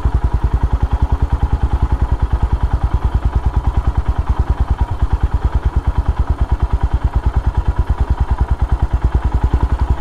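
Motorcycle engine running at low revs while riding, with an even, rapid beat of exhaust pulses, about ten a second.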